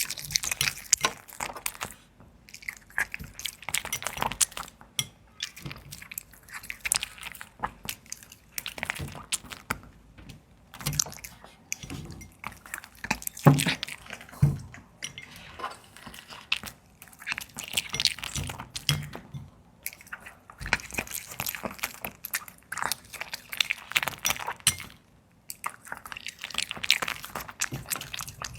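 A puppy chewing and eating its food, close up: many quick, irregular bites and chews in runs, broken by a few short pauses.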